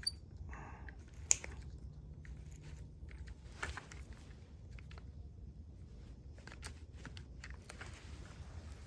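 Faint handling noises from the generator's recoil starter being worked on by hand: scattered light clicks and rustles, one sharper click about a second and a half in, over a low steady hum.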